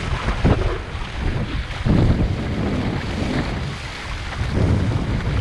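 Wind buffeting the microphone in uneven gusts, over sea water rushing and splashing along a sea kayak's hull and around the paddle blade as it strokes through the chop.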